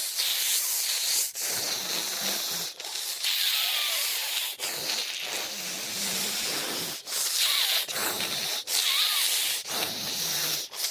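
Zombie sound effect: raspy, breathy hissing exhalations with faint moaning pitch underneath, in a run of short phrases broken by brief pauses.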